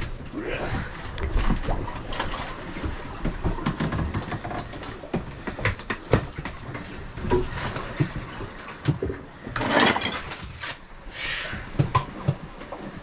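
Irregular knocking, clattering and creaking inside the cabin of a wrecked sailboat grinding on the rocks, loose gear banging around, with a short rushing burst about ten seconds in.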